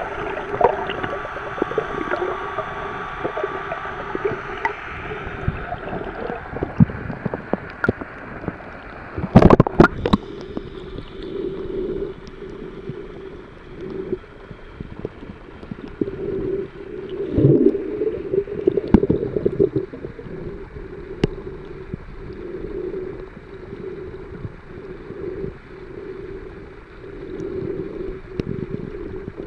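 Muffled underwater noise picked up by a submerged camera: water moving and gurgling around it in uneven swells, with scattered faint clicks. A sharp knock stands out just before ten seconds in, and a louder surge comes about seventeen seconds in.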